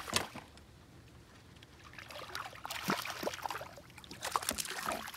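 A small hooked fish splashing and thrashing at the water's surface as it is reeled in to the boat, in several short bursts from about two seconds in.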